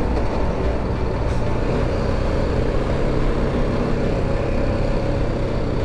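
A motor vehicle engine running steadily under heavy road and wind noise.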